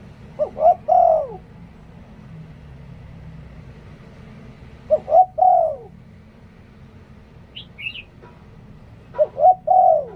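Spotted dove cooing: three phrases about four seconds apart, each two short notes followed by a longer coo that falls away at the end. A brief high chirp from another bird comes a little before the last phrase.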